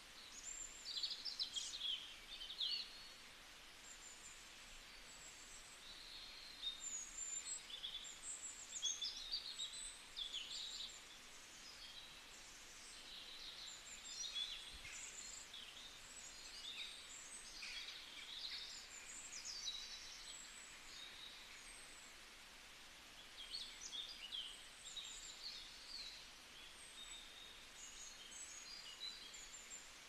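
Birds chirping and calling in quick clusters of short, high-pitched notes over a steady background hum.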